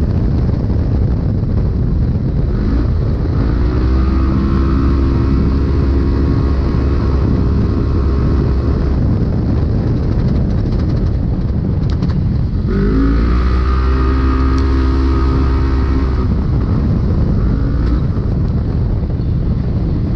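Polaris RZR UTV engine running hard over rough terrain, heard from inside the cab with a constant low rumble from the chassis and ground. Its pitch rises about three seconds in and holds steady, eases back, then rises again past the middle and holds before easing off.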